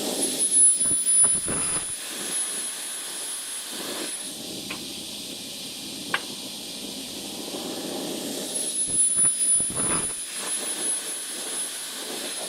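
Double-head aluminium profile cutting saw running with a steady noise and a thin high whine, with louder rough stretches about half a second to two seconds in and again around nine to ten seconds in.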